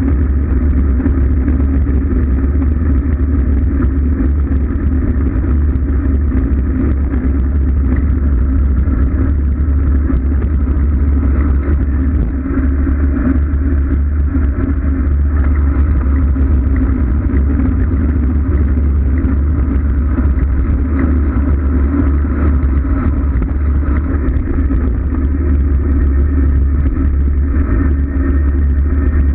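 Loud, steady wind rumble buffeting a GoPro's microphone on a road bike descending at speed.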